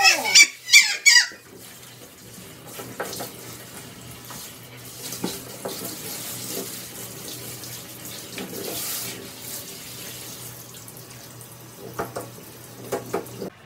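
Water spraying steadily from a handheld shower head onto a dog's coat, a continuous hiss. In the first second or so there are a few loud, high, sliding squeals, and a few shorter ones come near the end.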